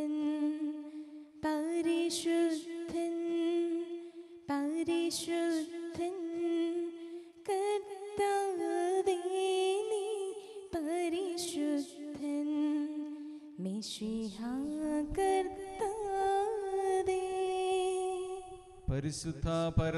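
A slow devotional hymn sung in phrases of about three seconds each, with long held notes. Near the end a lower, steadier chant-like sound comes in.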